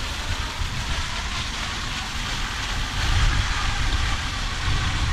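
Wind buffeting the microphone outdoors: a low rumble that swells about three seconds in and again near the end, over a steady hiss.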